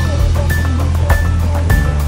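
Background music with a steady beat, about one beat every 0.6 s, over a heavy bass line.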